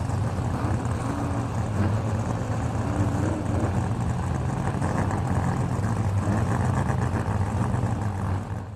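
Racing car engines running steadily with a low drone and faint rising and falling pitch above it, fading out near the end.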